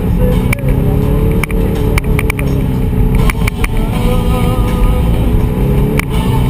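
Side-by-side UTV engine running steadily while driving a dirt trail, with a few sharp knocks and clicks from the bumpy ride.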